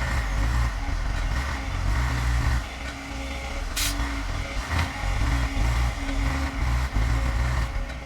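Heavy diesel machinery running under load, a deep rumble that swells and dips unevenly, with one sharp clack about four seconds in.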